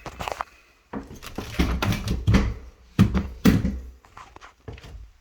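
Irregular knocks and heavier thuds of objects being moved aside by hand and footsteps stepping down into an unfinished basement, in a small echoing room.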